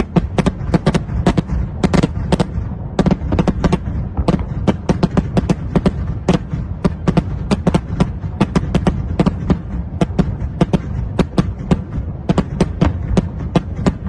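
A rapid, irregular series of sharp cracks, several a second, over a steady low rumble.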